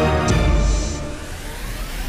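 Background music: held notes break off with a hit shortly after the start, followed by a sweeping swell.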